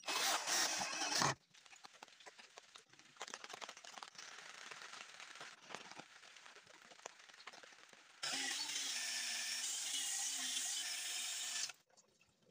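A cordless drill drives a screw into wood for just over a second. Softer scratching and clicking follow while coloured powder and glue are worked into the screw holes. About eight seconds in, a small power sander runs steadily for roughly three and a half seconds, then cuts off.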